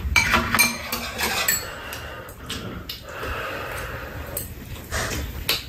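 Metal spoons clinking against ceramic bowls as two people eat hot soup, with eating noises between the clicks.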